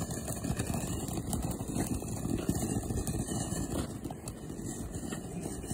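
Consumer ground fountain firework spraying sparks: a steady rushing hiss with fine crackling, easing off near the end.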